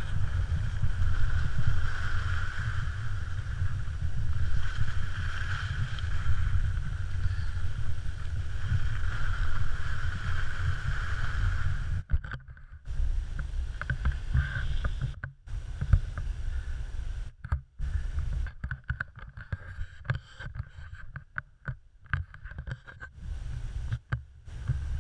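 Wind buffeting a GoPro Hero3 camera's microphone while skiing, a dense low rumble with a steady higher hiss over it. From about halfway the sound keeps cutting in and out in short gaps.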